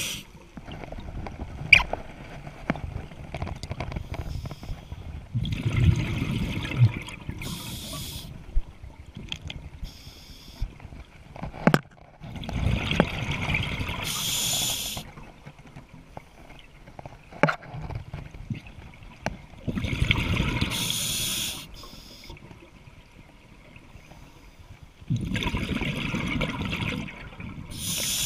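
Scuba diver breathing through a regulator underwater. There are four breaths about every six to seven seconds, each a rumble of exhaled bubbles with a short hiss from the regulator, and a few sharp clicks in between.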